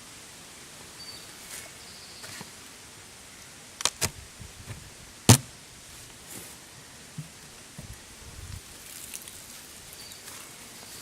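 A few sharp knocks and clicks over a steady hiss: two close together about four seconds in, the loudest a second later, then a few fainter ones.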